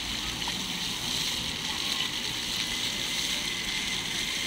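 Many small jets of a ground-level plaza fountain spraying up and splashing back onto wet stone paving, making a steady hiss.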